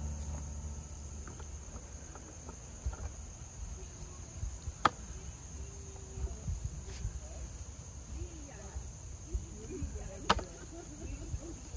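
Steady high-pitched chirring of crickets, with two sharp clicks about five seconds apart and faint distant voices.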